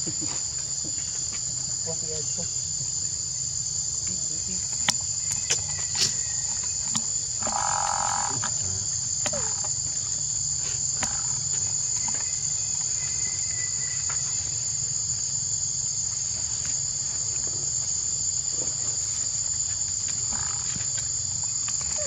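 A steady, high-pitched insect chorus drones without a break, with faint clicks and rustles here and there.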